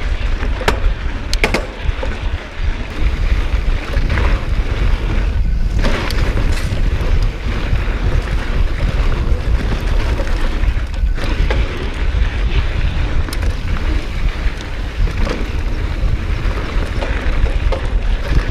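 Wind rumbling on an action camera's microphone while riding a mountain bike over a loose, sandy trail, with tyre and frame noise and a couple of sharp clicks or rattles in the first two seconds.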